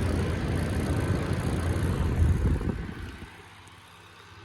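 A 12-inch oscillating box fan running on its low setting. Its airflow makes a loud, choppy rumble on the microphone that drops away about three seconds in, leaving the fan's quieter steady hum.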